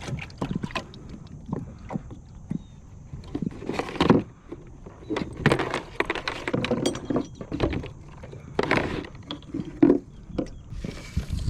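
Irregular knocks, scrapes and rustles of handling on a fishing kayak, with water sloshing against the hull.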